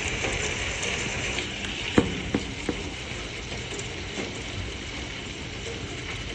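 Hail with rain pelting down: a dense, steady hiss with sharper knocks of hailstones striking, the loudest about two seconds in and two more right after.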